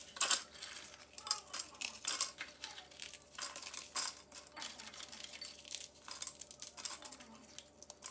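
Dry petit beurre biscuits snapped by hand, the pieces clattering into the plastic bowl of a mini chopper: a run of irregular small cracks and clicks.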